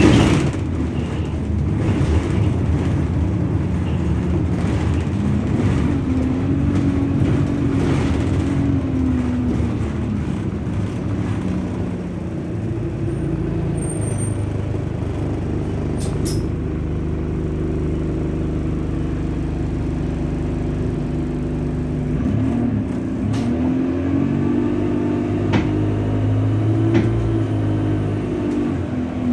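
Inside a moving single-deck bus, an ADL Enviro 200: a steady low engine and road drone, with the engine note rising and then falling twice as the bus speeds up and slows, once about a fifth of the way in and again near the end.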